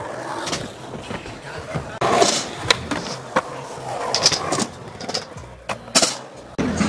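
Skateboard wheels rolling on concrete, broken by several sharp clacks of the board hitting the ground from pops and landings.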